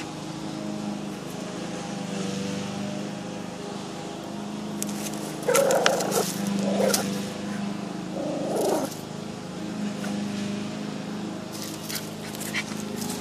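A small leashed dog whining and yelping in three short, louder bursts around the middle, with scratching and scuffling on gravel as it paws at the gap under a shed, eager to get at an animal hiding beneath it. A steady low hum runs underneath.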